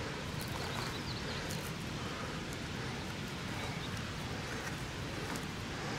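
Faint rustling and crackling of dry pine needles and twigs as a hand picks through the forest litter, with a few small ticks, over a steady low outdoor rumble.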